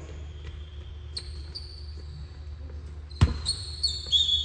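Basketball bouncing on a gym floor, with a loud thud just after three seconds. High squeaks near the end fit sneakers on the court.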